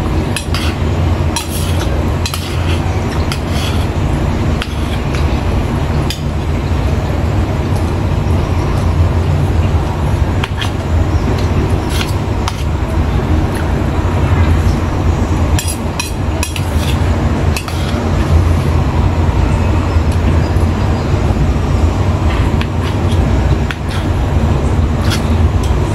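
Metal spoon clinking and scraping against a stainless steel bowl now and then while eating, over a loud, steady low rumble.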